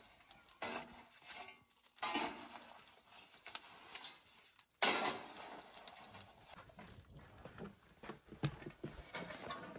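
Kitchen cooking noises: pots, pans and utensils being handled, with stretches of hiss that start suddenly three times and scattered sharp clicks.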